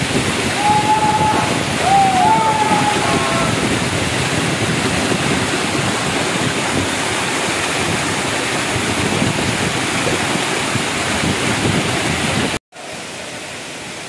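Waterfall pouring onto rock in a steady, dense rush of water. Near the end the sound cuts out for a moment and comes back softer.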